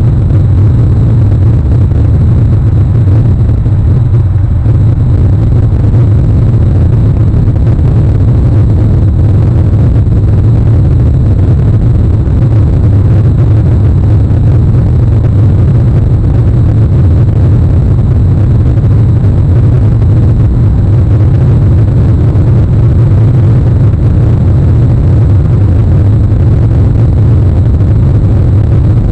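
Steady, loud low rumble with a hiss above it, unchanging throughout, with no bird calls heard.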